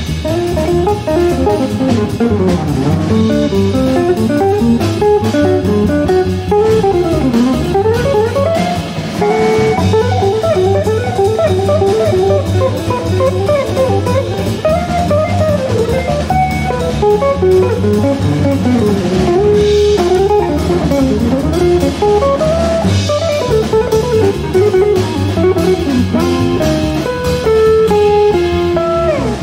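Modern jazz group playing live: electric guitar plays fast, winding single-note lines over walking bass and drum kit.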